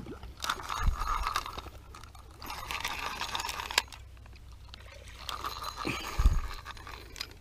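Close handling noises as a caught bullhead is held and unhooked: rustling and scraping in several stretches, with a low bump about a second in, another near the end, and one sharp click in between.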